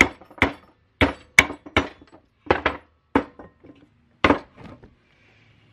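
Steel helmet being handled on a wooden workbench: a string of about ten sharp, irregular knocks and clinks over the first four and a half seconds, each with a short metallic ring.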